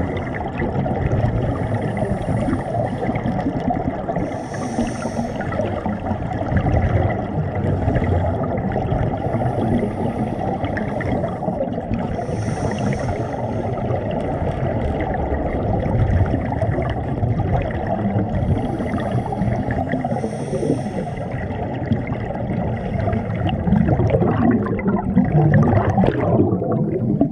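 Scuba divers' regulator exhaust bubbles heard underwater: a steady muffled rumble of water with a bubbling hiss every few seconds as the divers breathe out.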